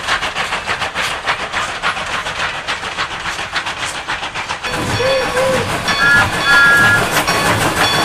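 Steam locomotive chuffing steadily along the track. About six seconds in, it gives a short whistle blast and then a longer one, each sounding two pitches together.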